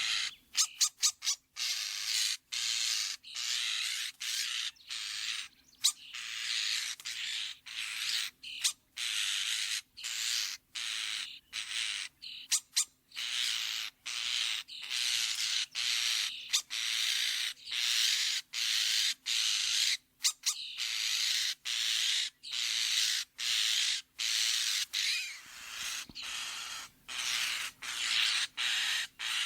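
European starling giving harsh, raspy calls in short repeated bursts, each about half a second to a second long with brief gaps between.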